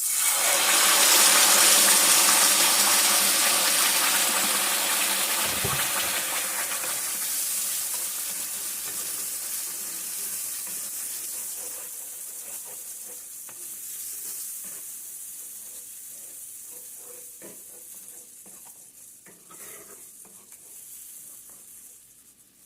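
Tomato sauce poured into hot oil and vegetables in a pan, sizzling. The sizzle starts suddenly and loudly, then slowly dies down, with a spoon stirring and tapping in the pan in the second half.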